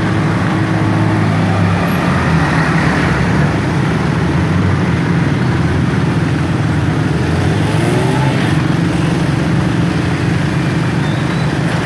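Very heavy rain pouring down, a loud, steady, dense hiss with a low steady hum underneath.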